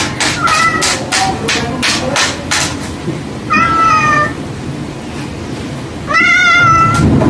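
Domestic cat meowing twice, two drawn-out calls about three and a half and six seconds in. The first three seconds hold a quick run of sharp clicks, about four a second.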